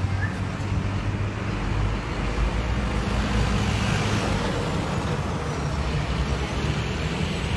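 Motor vehicle engine running steadily with road noise, its hum shifting in pitch a few times.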